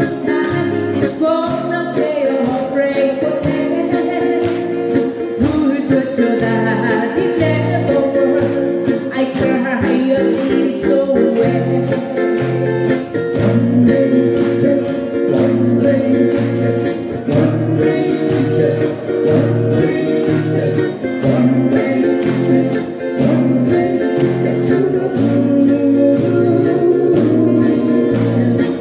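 Live band of strummed acoustic guitars playing an upbeat pop-disco song with a steady beat, a voice singing over it.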